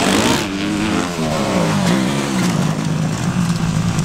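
Motocross dirt bikes racing, their engines revving up and down in pitch as the riders work the throttles, with a brief louder burst at the very start.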